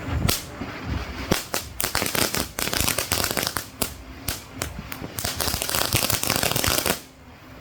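Ground-level consumer firework crackling and popping in fast, irregular bursts, stopping about seven seconds in.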